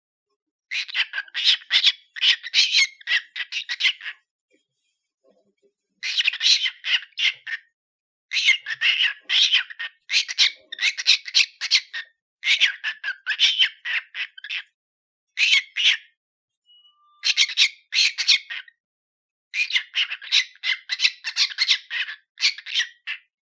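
Pet cockatiel chattering in quick runs of scratchy syllables, phrases a second or two long broken by short pauses.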